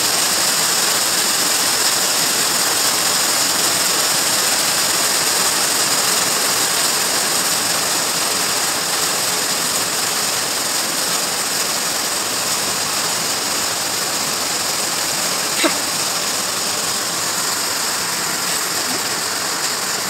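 Heavy rain mixed with hail pouring down steadily onto a lawn and a concrete patio, a dense, even hiss. One sharp tick stands out about three-quarters of the way through.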